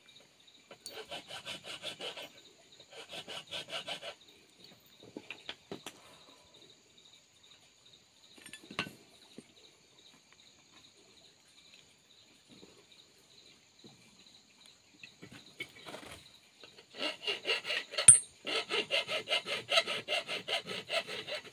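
Steel being rasped in quick back-and-forth strokes: two short runs early, then a longer, louder run near the end, broken by one sharp metallic click.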